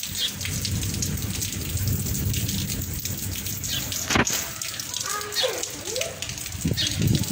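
Steady rain falling, with a single sharp click about four seconds in.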